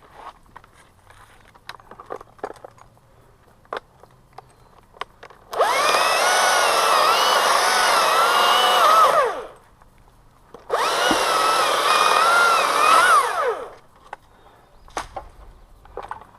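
Two-stroke chainsaw run at full throttle for two cuts, about four and three seconds long. The pitch wavers slightly under load and drops away as the throttle is released. Scattered small knocks and clicks fall between and around the cuts.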